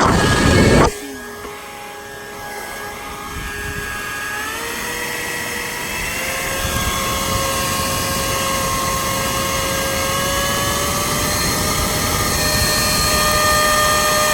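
Leaf blower running: a loud rush of air for the first second, then a steady whining motor whose pitch and loudness climb gradually as it speeds up.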